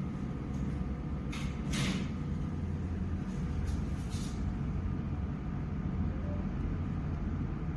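Steady low running rumble of a large vehicle, with a few short hisses about a second and a half, two seconds and four seconds in.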